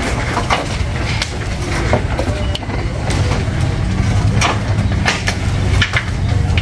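A small engine running steadily at low speed, with irregular sharp clicks and cracks over it.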